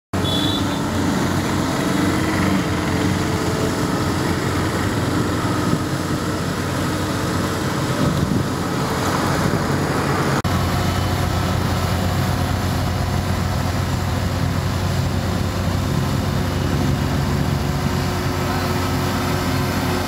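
Diesel engine of a 10-ton JCB single-drum vibratory roller running steadily as it compacts sand. About halfway through the sound cuts to a closer, steadier engine note.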